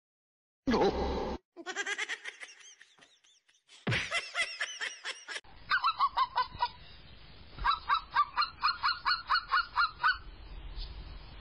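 A sudden loud sound about a second in, then a string of high wavering animal calls. From about halfway, a fast run of short, high yapping barks, about five a second, in two bursts.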